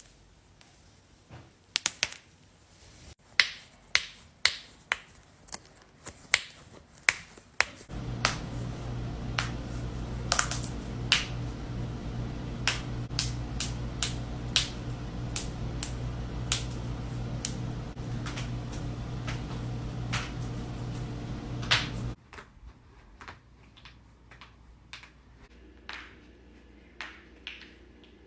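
Knuckle and toe joints being cracked: a long run of sharp, separate pops, sometimes several in quick succession. Through the middle stretch a steady low hum lies under the pops and stops suddenly.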